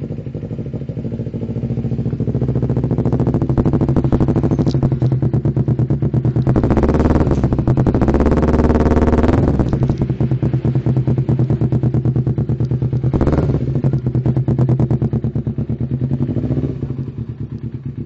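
Kawasaki Ninja 250R's parallel-twin engine idling through an R9 Racing aftermarket slip-on muffler. It is revved up and back down over a few seconds about a third of the way through, then given a short blip a few seconds later.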